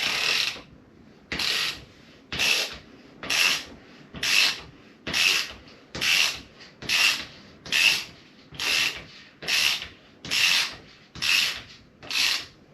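Ratchet wrench worked back and forth to screw the fork cap down onto the fork tube threads, a burst of ratchet clicks on each stroke, about one a second, evenly repeated.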